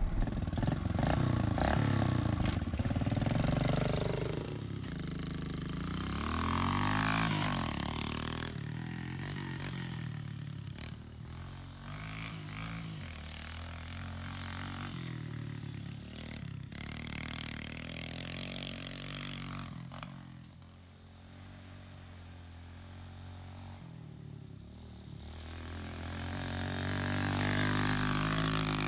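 Kawasaki KLX 110 pit bike's small single-cylinder four-stroke engine being ridden round a dirt track, its revs rising and falling again and again. It grows louder as the bike comes close, fades as it rides off, and is loudest again near the end.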